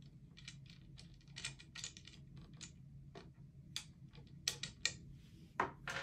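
Irregular light clicks and taps of wooden table-loom parts being handled and taken off the beater, with a few sharper knocks near the end.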